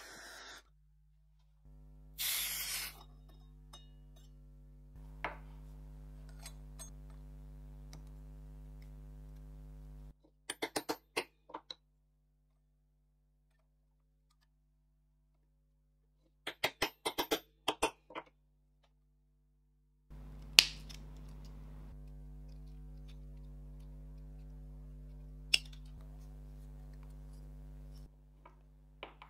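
Light metallic taps and clicks from small metalworking, a copper disc being fitted and tapped onto the end of a brass tube. They come in two quick bursts of several taps, then two single sharper taps, over a steady low hum. Near the start a gas torch's hiss cuts off, and a short hiss follows.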